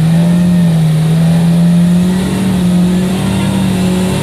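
A motorboat's engine running steadily under way: a loud, even drone that holds nearly the same pitch throughout.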